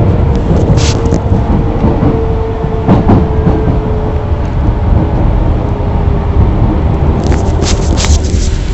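Osaka Midosuji Line Series 21 subway train running, heard from inside the car: a steady low rumble of wheels on rail with a motor whine that slides slightly lower, a few sharp clicks, and brief hissing bursts about a second in and again near the end.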